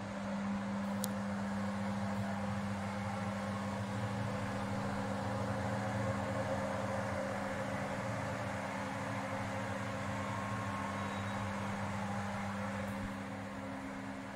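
Steady machine hum with a low, even drone. It grows a little louder just after the start and eases off shortly before the end. There is a faint click about a second in.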